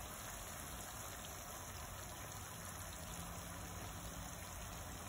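Dried salted mackerel frying in oil in a pan, with a steady sizzle.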